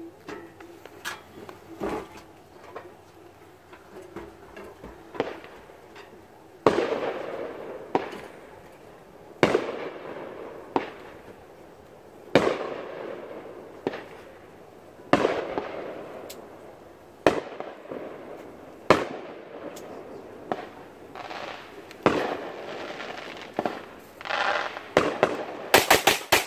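Fireworks going off: a series of sharp bangs, one every two to three seconds, each trailing off in a long echoing tail, then a quick run of crackling reports near the end.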